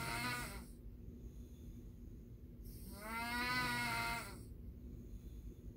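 A man snoring in his sleep: drawn-out, pitched snores on each breath, about every three and a half seconds. One tails off just after the start and a full one comes in the middle.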